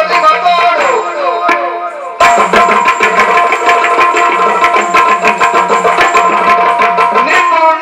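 Yakshagana percussion ensemble, with the chande and maddale drums playing rapid strokes over a steady drone. About a second in, the drumming thins to a few drum notes that bend downward in pitch, then returns fast and dense just after two seconds.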